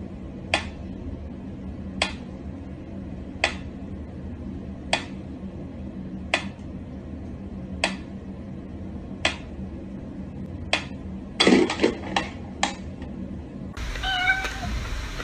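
Pyramid-style mechanical metronome ticking slowly, one sharp tick about every one and a half seconds. Near the end come a quick run of louder clicks.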